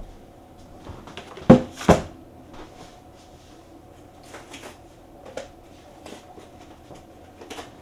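Packaged screwdriver set being handled: two loud knocks about a second and a half in, then scattered light clicks and taps.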